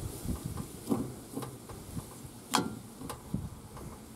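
Scattered metallic clicks and taps of a hex key working the low-side service valve of a mini split outdoor unit as it is backed out to open the line set, the sharpest knock about two and a half seconds in.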